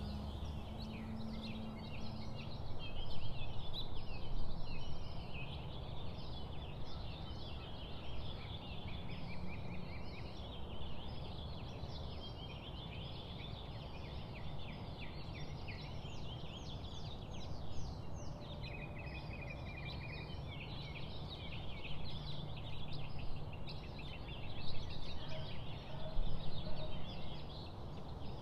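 A dense chorus of small birds chirping and chattering, with many rapid high notes overlapping. It swells louder a few seconds in and again near the end, over a faint steady low background noise.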